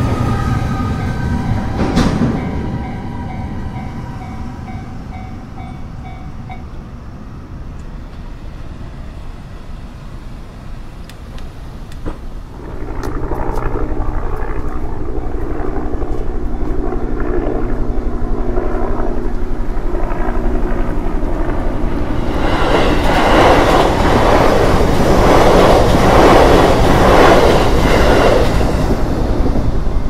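Freight train of tank wagons rolling through a level crossing while the crossing's warning bell rings; the bell stops about six seconds in and the train noise fades. About halfway through, a louder rushing noise takes over and swells near the end.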